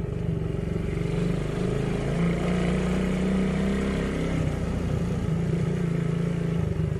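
Motorcycle engine running steadily on the move, its pitch rising slightly about two seconds in and easing back a couple of seconds later.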